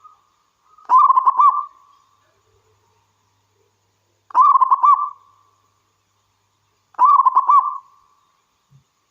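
Zebra dove (perkutut) singing: three short phrases of rapid, bubbling coos, each about a second long and roughly three seconds apart.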